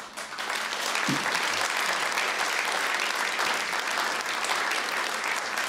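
Audience applauding: many people clapping together, breaking out at once and holding steady.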